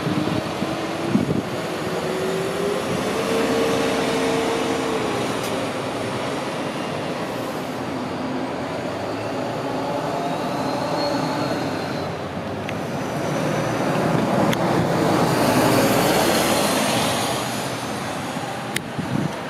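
Diesel city buses running. A bus pulls away with its engine note rising over the first few seconds. Steady engine and road noise follows, swelling with a hiss for a couple of seconds near the end.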